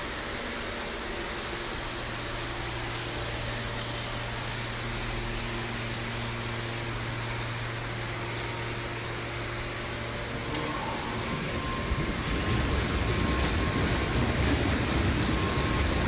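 Steady low mechanical hum of pool-hall machinery, like a ventilation fan or pump, echoing in a tiled indoor pool room. About twelve seconds in, a louder steady rush of churning water from underwater massage jets takes over.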